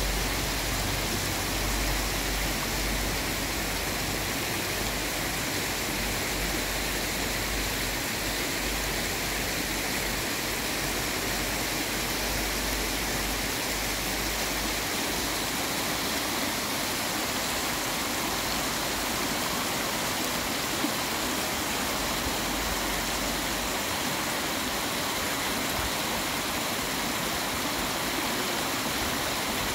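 Shallow stream running fast over a stony bed and riffles, a steady hiss of rushing water.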